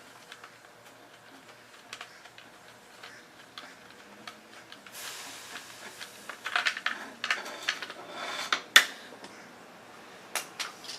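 Scattered clicks and light rattling from tools and motorcycle parts being handled. The handling is sparse at first and gets busier from about five seconds in, with one sharp click a little before the end.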